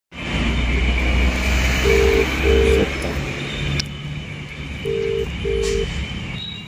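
Mobile phone on loudspeaker playing the ringback tone of an outgoing call: a double ring, two short beeps, heard twice about three seconds apart, over a low background rumble.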